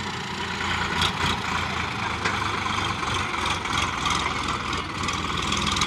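Sonalika tractor's diesel engine running steadily with a low, even drone.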